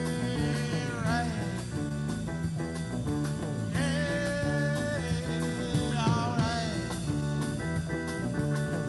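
A rock band playing live: a singer over electric guitar, bass and drums, with held and bending notes.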